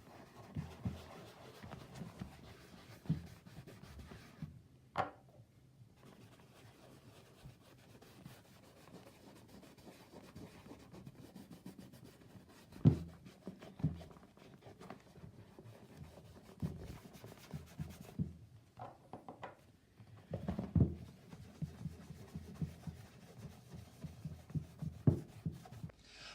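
Cloth-wrapped finger rubbing dye cream into a leather riding boot: soft, irregular rubbing strokes with a few sharper knocks, the loudest a little before halfway.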